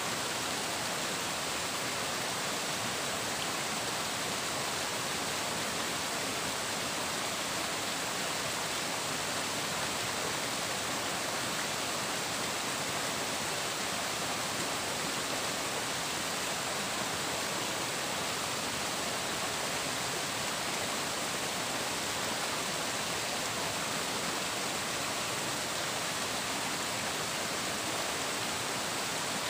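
Flowing water rushing steadily and evenly, like a stream or small waterfall, with no breaks or changes.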